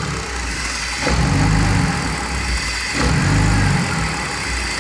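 BMW 330Ci inline-six engine idling with the mass air flow sensor just reconnected, running rough from a random misfire that is blamed on vacuum leaks. The engine note swells about a second in and again about three seconds in.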